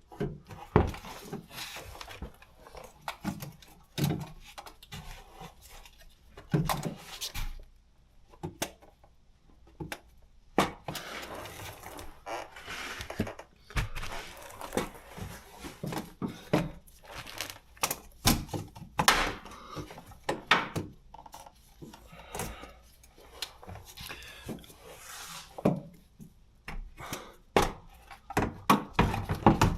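Irregular knocks, clicks and clatter of hand tools and parts being handled during oil-change work.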